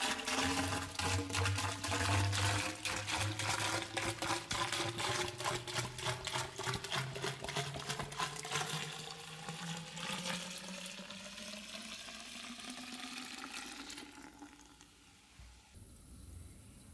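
Liquid glugging and splashing as it is poured from a large bottle into a plastic bucket, about six litres. The pitch rises steadily as the bucket fills. The pour tapers off after about ten seconds.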